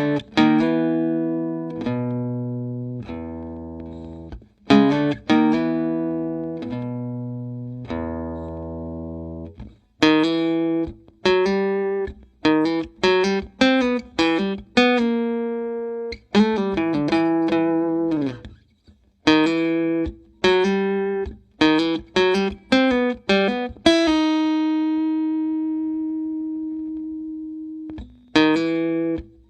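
Background music played on a plucked guitar: single notes and chords, each ringing and fading, with one long sustained note near the end.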